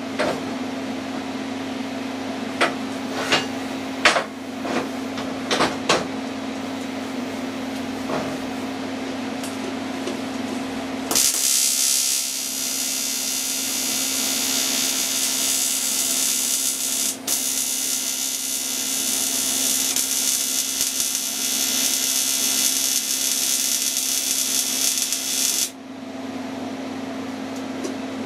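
A few sharp knocks as the aluminium scooter part is handled. About eleven seconds in, an AC TIG welding arc on the aluminium starts with a loud, even hiss. It breaks briefly about halfway, then cuts off sharply a couple of seconds before the end. A steady low hum is heard underneath before and after the arc.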